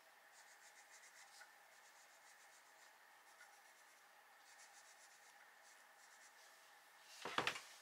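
Faint scratching of a Faber-Castell Polychromos coloured pencil shading lightly on paper, in several short runs of quick back-and-forth strokes with pauses between. A brief louder sound comes near the end.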